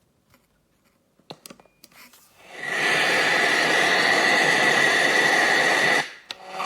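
A few clicks, then an FM radio receiver hissing with loud static and a steady high whistle for about three and a half seconds. The static cuts off and music from a tuned station starts near the end.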